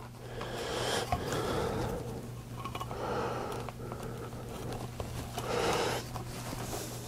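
Gent saw cutting dovetail kerfs into a slice of crusty sourdough bread: several slow back-and-forth strokes, each a soft scratchy swell, over a steady low hum.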